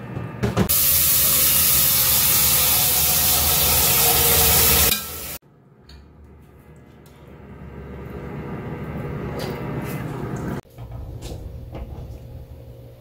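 Onion, cabbage and crumbled tofu sizzling in a hot stainless steel pot: a loud, even hiss for about four seconds that cuts off suddenly, then a quieter sizzle under the lid that builds up before cutting off again.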